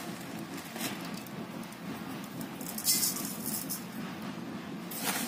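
Granulated sugar poured from a metal scoop into a steel bowl of powdered maadli mix: a few short hissing trickles, the strongest about three seconds in.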